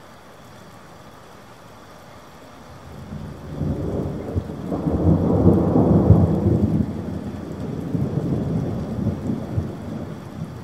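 Steady rain with a long roll of thunder that builds about three seconds in, is loudest around the middle, and rumbles away slowly toward the end.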